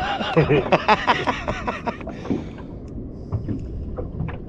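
A man's voice briefly in the first two seconds, then a low rumble of wind and water around a small boat, with a few light clicks near the end.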